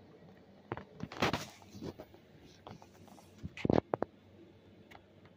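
Handling noise of a picture book and a hand-held phone being moved over it: soft paper rustles and light clicks, with a louder short bump about three and a half seconds in.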